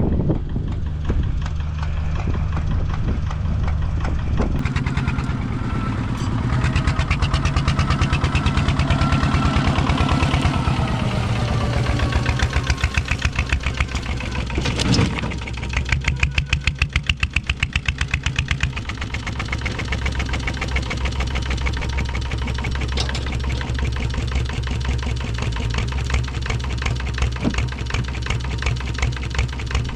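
An engine running steadily with a fast, regular beat.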